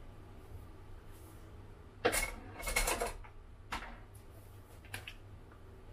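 Kitchen handling sounds as coconut milk is poured from a container over half-steamed glutinous rice in a plastic bowl: a short noisy splash and clatter in two parts, about two seconds in, and a few light clicks, over a low steady hum.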